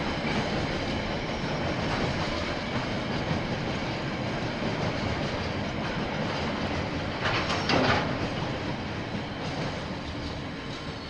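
KiwiRail train passing on the line, its wheels clattering over the rails in a steady run. A brief, louder, sharper burst comes about seven and a half seconds in, and the sound begins to fade near the end as the train moves away.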